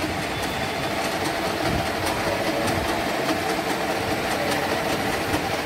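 Paper-straw core-winding machine running on the factory floor: a steady mechanical hum with light, irregular clicking.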